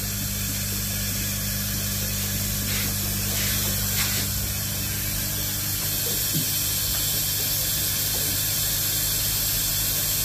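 A steady low electrical hum over a constant hiss, with a few faint clicks a few seconds in.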